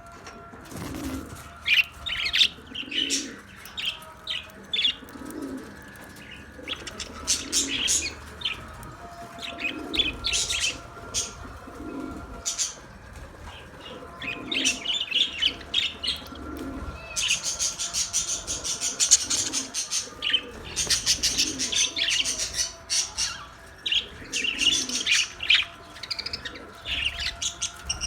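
Small Australian parrots chirping and chattering in dense, overlapping bursts, busiest past the middle. Under them a low coo repeats about every second and a half.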